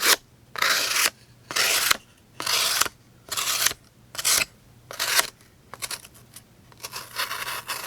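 A D2 steel folding-knife blade slicing through cardboard in about six quick, evenly spaced strokes of roughly half a second each, with lighter scraping cuts near the end. The blade passes through easily.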